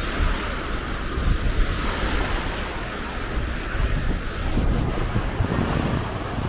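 Small waves breaking and washing up on a sandy shore, a steady hiss of surf, with wind buffeting the microphone in uneven low gusts.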